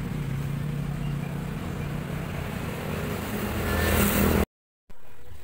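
A motor running with a steady low hum that grows louder about four seconds in, then cuts off abruptly before a quieter hum returns.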